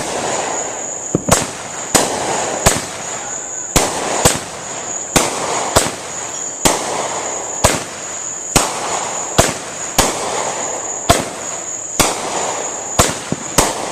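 Consumer fireworks going off in a steady run of sharp bangs, about one a second, with crackling between the reports.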